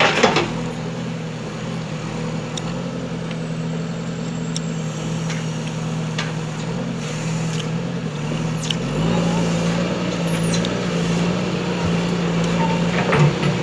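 JCB backhoe loader's diesel engine running steadily under work, its pitch stepping up slightly about nine seconds in. There is a loud short burst right at the start and another near the end, with a few light clicks between.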